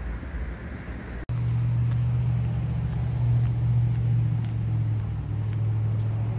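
Steady low rumble of a running vehicle. About a second in, a hard cut switches to a louder, steady low engine hum.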